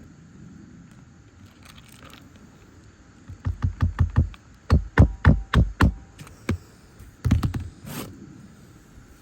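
A rapid run of hard knocks, over a dozen in quick clusters across about five seconds, the loudest near the middle.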